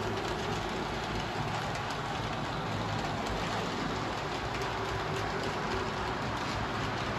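HO scale model freight train rolling along the track: a steady rattle of wagon wheels on the rails, dotted with small clicks, over a low hum.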